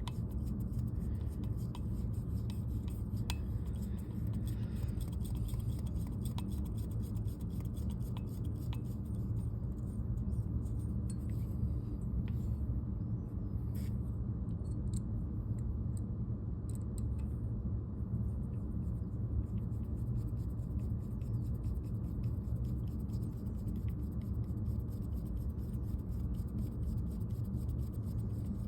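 Faint scattered clicks and light scraping of an Allen key driving small screws into a paintball marker's frame, over a steady low hum.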